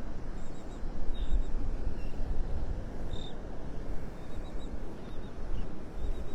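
Wind buffeting the microphone in an uneven rumble, with short high calls from seabirds coming several times.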